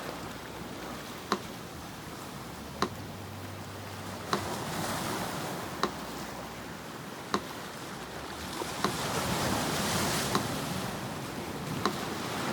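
Sea surf washing in and out, swelling twice, under a metronome ticking slowly and evenly, one click every second and a half.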